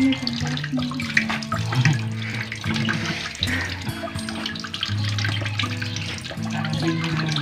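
Kitchen faucet running and splashing into a stainless steel sink as a crab is rinsed under the stream by hand. Background music with held low notes plays over it.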